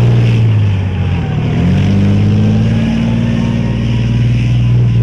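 Leopard 2 main battle tank on the move, its V12 diesel engine running with a steady low drone. Between one and two seconds in, the note dips briefly and then picks up again.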